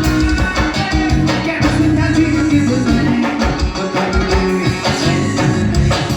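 Forró band music playing with a steady, driving beat.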